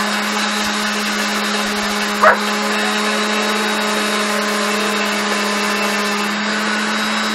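Handheld electric grinder running steadily at one even pitch while it shapes a small filter adapter. A dog barks once about two seconds in.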